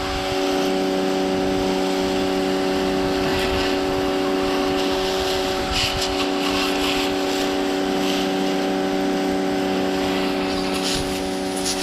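Powerworks 1700 PSI electric pressure washer running, its motor and pump giving a steady hum. A straight jet of water from a red pin-point nozzle hisses against the house siding, spattering louder about six seconds in and near the end.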